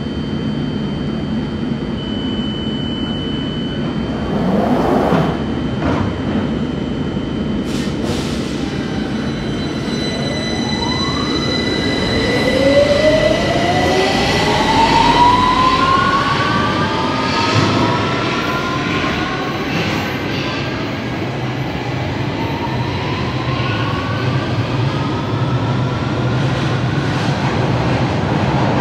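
London Underground 1995-stock Northern line train pulling out of a tube station. Its traction motors whine, rising in pitch in several sweeps as it speeds up, over the steady rumble of the wheels in the tunnel.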